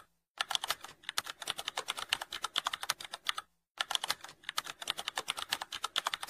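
Computer keyboard typing sound effect: a rapid, uneven run of key clicks that breaks off twice briefly, near the start and about halfway through.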